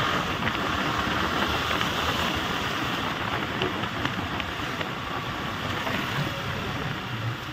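Motorcycle being ridden: engine and road noise mixed with wind rush on the microphone, getting slightly quieter toward the end.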